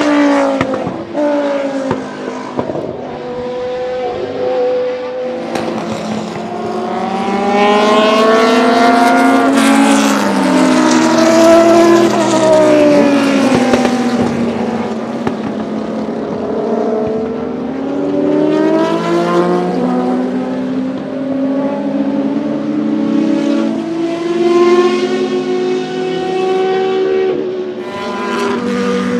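Judd GV10 3.5-litre naturally aspirated V10 of a 1992 Lola T92/10 Group C race car at racing speed, its pitch climbing through the gears and falling away as it passes, loudest about ten seconds in. The revs climb again in the second half.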